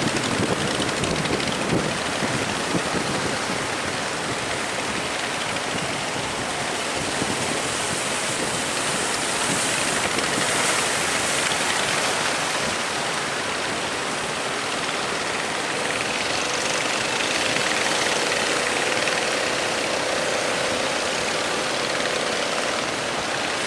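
Steady rushing of wind and heavy sea around a ship under way. A faint steady hum joins about two-thirds of the way in.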